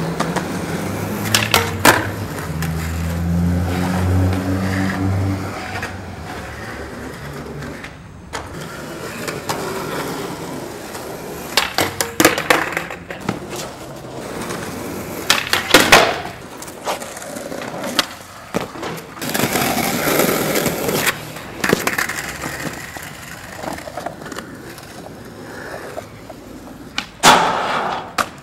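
Skateboard wheels rolling on concrete, broken by several sharp clacks of the board popping and hitting the ground as tricks are tried, with the board clattering loose on some of them.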